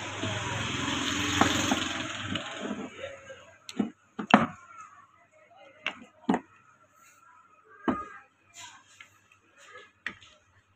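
Metal parts of a 12 V DC water pump motor being handled and fitted together: a scraping rustle for the first two to three seconds, then a string of sharp knocks and clicks, the loudest a little over four seconds in.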